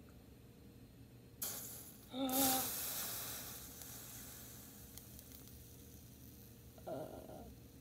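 Water sizzling on a hot saucepan over a gas burner: a hiss that starts suddenly about two seconds in and fades away over a few seconds, with a shorter burst near the end.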